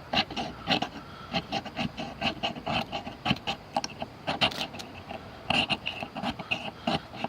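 The small file of a Leatherman Style CS multitool scraped again and again down a ferro rod, in quick, uneven strokes about three a second. It makes a poor ferro rod scraper.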